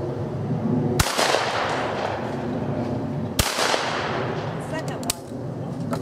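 Two shotgun shots from a break-action shotgun, about two and a half seconds apart, each with an echoing tail: a pair of clay targets being shot. Near the end comes a light click as the gun is broken open.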